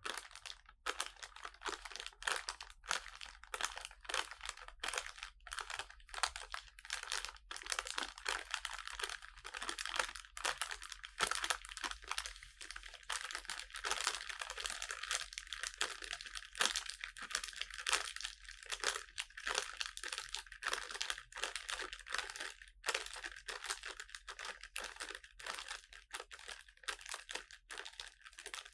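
Close, continuous crinkling of paper instruction sheets and a small clear plastic parts bag being handled: a rapid run of small crackles with only brief pauses.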